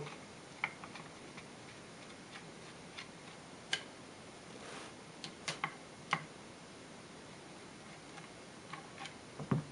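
Screwdriver turning out the steel floor-plate screw of a Berthier carbine, giving faint, irregular clicks as the blade works in the screw slot.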